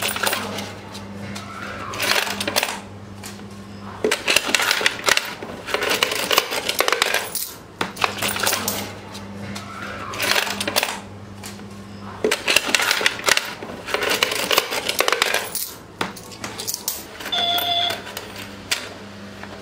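Coins clinking and rattling against each other and the plastic inside an electronic toy money bank as a hand rummages through them and scoops them out, in repeated bursts of a second or two.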